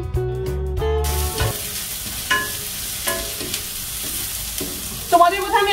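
Sliced onions sizzling as they fry in ghee and mustard oil in a steel kadai, with a wooden spatula knocking against the pan a couple of times. Guitar music ends about a second and a half in.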